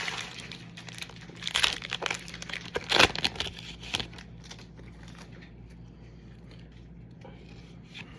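Foil wrapper of a Pokémon TCG booster pack being torn open and crinkled, with the loudest crackles about one and a half and three seconds in, then only faint handling for the rest.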